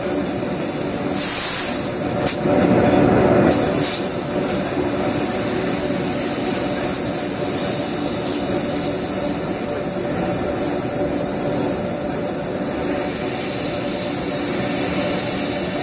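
Amada LASMAC L1212 2 kW CO2 laser cutter running while it cuts sheet steel: a steady machine hum and hiss with a faint high whistle. A few louder bursts of hiss come in the first four seconds.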